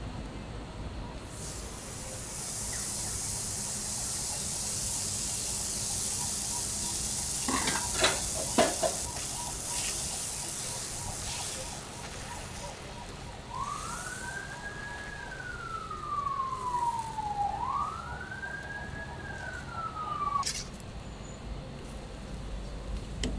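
Crepe batter sizzling on a hot round crepe griddle, a high hiss that starts about a second in and dies away after about ten seconds, with a few sharp clinks midway. Then a siren wails, rising and falling twice, before cutting off.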